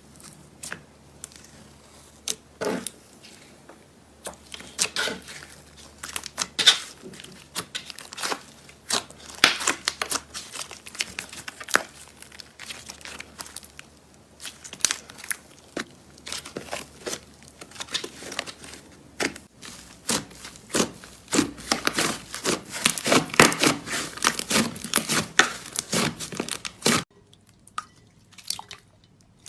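Slime being worked by hand, giving irregular crackling, popping and tearing sounds that grow thick and busy in the second half, then thin out suddenly near the end.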